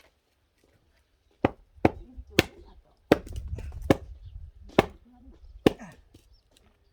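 Axe chopping firewood: seven sharp strikes, each under a second apart.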